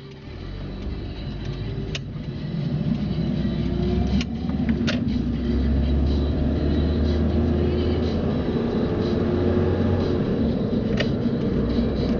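Car driving along a road: a steady low rumble of engine and tyre noise that builds over the first few seconds and then holds even, with a few faint clicks.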